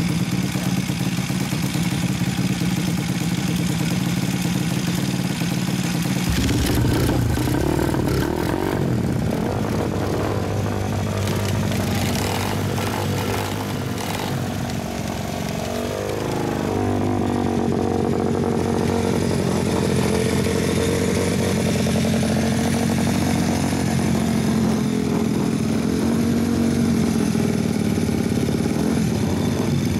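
Small single-cylinder engine of a custom Honda Monkey, a 124.8 cc Daytona engine, running steadily, its pitch swinging up and down briefly about halfway through.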